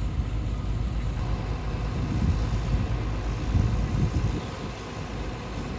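Heavy diesel engine of an excavator loading a truck, running with a low steady rumble that swells louder and uneven about two to four seconds in.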